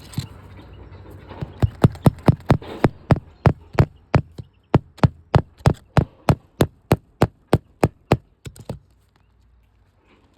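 Hammer blows on a roof during asphalt shingle replacement: a steady run of sharp strikes, about three a second, that starts a second and a half in and stops about two seconds before the end.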